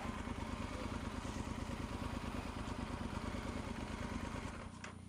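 Motorcycle engine running steadily at low revs, then shut off near the end.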